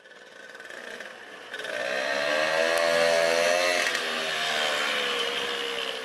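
Moped engine running as the moped rides past. It swells about a second and a half in, is loudest around three seconds in, then slowly fades as it moves away.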